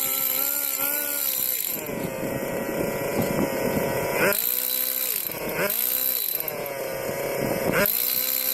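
A small high-revving motor running, its pitch dipping and recovering several times as it comes under load.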